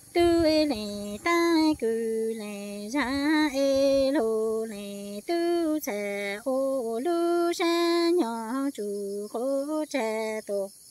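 A woman singing Hmong kwv txhiaj (traditional sung poetry), unaccompanied, in long held notes that step and glide between pitches with short breaks between phrases.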